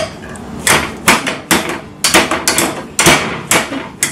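Wire potato masher striking the bottom and sides of an enamel pot of soft boiled potatoes, a sharp metal clank with each stroke at about two to three strokes a second.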